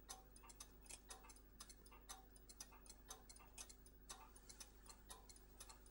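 Faint, steady, fast ticking of a clockwork escapement, several ticks a second, over a low mains hum.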